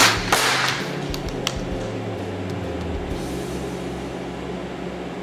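A single .22 LR rifle shot with Eley ammunition: a sharp crack, then a second crack about a third of a second later that rings briefly in the room. A few light clicks follow about a second in.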